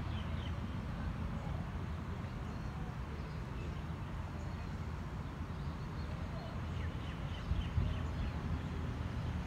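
Outdoor ambience: a steady low rumble, with small birds chirping faintly at the start and again near the end.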